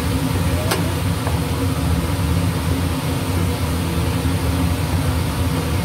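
Steady low mechanical hum under a wooden spatula stirring eggplant in a nonstick frying pan, with one sharp knock of the spatula on the pan just under a second in.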